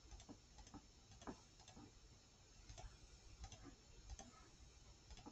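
Faint, irregular clicks of a computer mouse, about a dozen, as number keys are pressed on an on-screen calculator.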